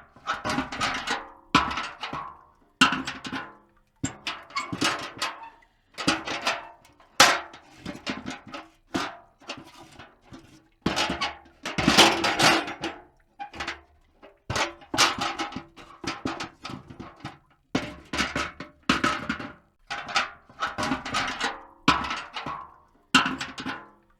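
Metal bucket clanking and rattling: bursts of knocks with a ringing tail, coming in clusters of a second or two with short gaps between.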